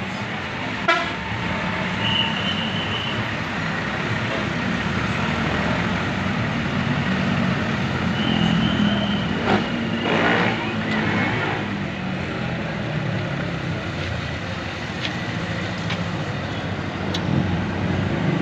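Steady road traffic noise from passing vehicles, with two short high horn toots, one about two seconds in and one around eight to ten seconds in.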